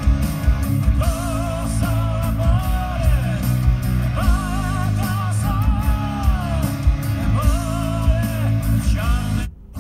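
Rock song with a singer and guitar, playing from an FM car radio tuned to Nashe Radio at 101.7 MHz. It cuts out briefly near the end as the radio steps to the next station.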